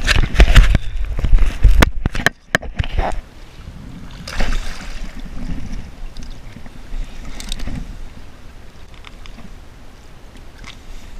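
Water splashing and sloshing around a mulloway (jewfish) held in the shallows at the water's edge for release, loudest and most broken up in the first three seconds, with smaller splashes later. Wind rumbles on the microphone throughout.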